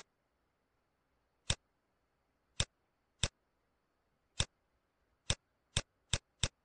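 Computer mouse button clicking: about eight single sharp clicks at uneven intervals, coming quicker toward the end.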